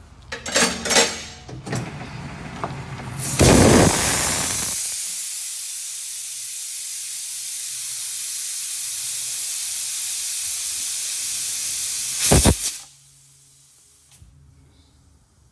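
A few sharp clicks, then a blast of compressed air and a steady hiss for about nine seconds, ending in a second short blast and a sudden stop: an air line on a tyre being worked on a tyre changer.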